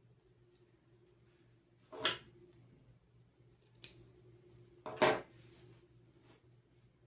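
Small embroidery scissors snipping sewing thread: a short sharp snip about four seconds in, between two louder knocks as the scissors and work are handled, about two and five seconds in.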